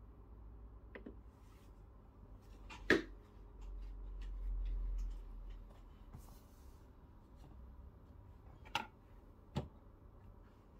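Sharp clicks and knocks of hands working at a Breville Barista Pro espresso machine: one loud click about three seconds in and two more near the end, with a low hum for about two seconds in the middle.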